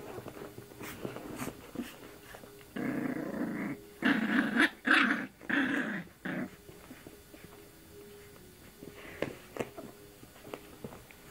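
Puppy growling in play, a run of several short growls in the middle, with faint clicks around them.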